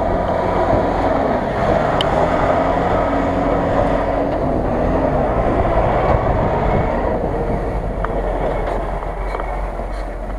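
GAZ-66 truck driving past under power, its engine note rising and falling, easing slightly near the end as it pulls away.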